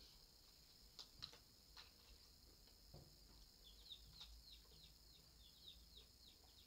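Faint bird chirping outdoors: a quick run of short, falling chirps, about four or five a second, in the second half. A few faint knocks come earlier.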